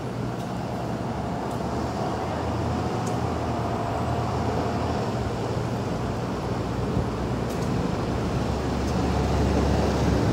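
City street traffic noise with a steady low rumble of vehicle engines, slowly getting louder.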